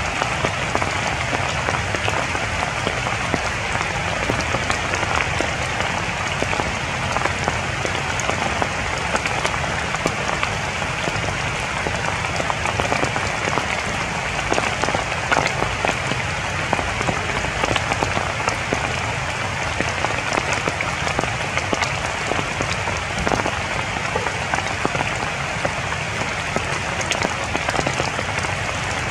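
Steady rain falling on broad tree leaves: an even hiss dotted with many separate drop hits.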